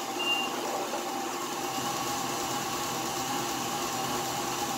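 KitchenAid stand mixer running at a steady speed, its motor humming evenly as it beats cooked potatoes into mashed potatoes.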